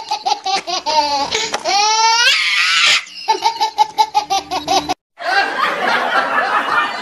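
High-pitched laughter in quick repeated 'ha-ha' pulses, with a rising squeal about two seconds in. It breaks off sharply about three seconds in and again just before five seconds, and after that comes a rougher, more mixed laughter.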